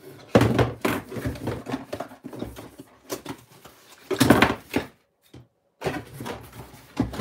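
Cardboard box packaging and plastic-bagged parts being handled while a boxed RC car is unpacked: irregular rustling, scraping and knocks, loudest about four seconds in.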